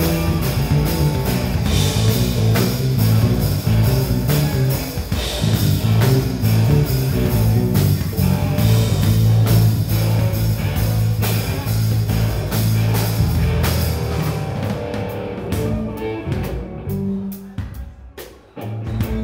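Rock band playing live: electric guitar and a moving bass line over a drum kit. The playing thins out near the end, with a short break just before it picks up again.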